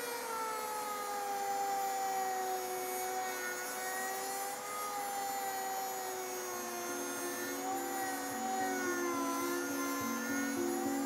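Small hand-held rotary tool with a sanding drum running at high speed, grinding down the bottom edge of a windshield. Its whine dips and recovers in pitch as the drum is pressed into the edge. Background music comes in during the second half.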